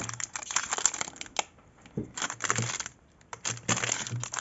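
Clear plastic bags around small gel polish bottles crinkling as they are handled, in irregular bursts with a few sharp clicks of the bottles knocking together.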